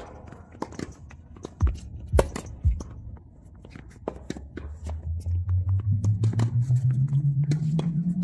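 Tennis rally: a few sharp knocks of racket on ball and the ball bouncing on a hard court. From about halfway through, background music comes in as a low tone that pulses in a steady rhythm and slowly rises in pitch.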